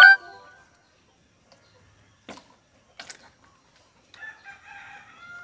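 A rooster crowing faintly from about four seconds in, its call ending on a long steady note. Before that come two faint clicks, and a loud rising cry cuts off right at the start.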